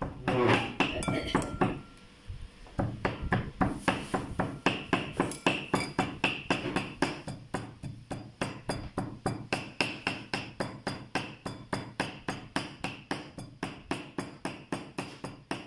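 Cleaver chopping raw beef on a thick round wooden chopping block: a fast, even run of knocks, about four a second, as the meat is minced.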